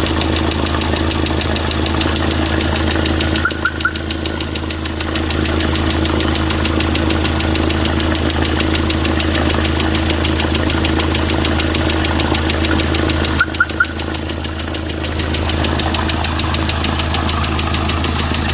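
Hyundai/Kia D4CB 2.5-litre common-rail diesel idling with a fast, steady knock. The mechanics suspect the crankshaft is at fault. The sound dips briefly twice, about 3.5 and 13.5 seconds in.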